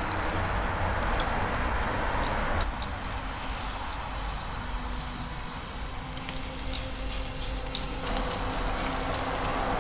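Ribeye steaks sizzling on a hot grill, with scattered crackling pops. The sizzle turns thinner and quieter from about three seconds in, then comes back fuller near the end.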